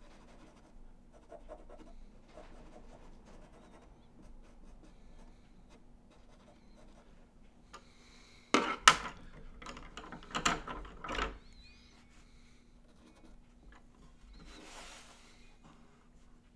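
Soft pastel pencil scratching faintly on paper. About halfway through, a short flurry of sharp knocks and rustles is the loudest thing heard, and there is a brief soft rub near the end.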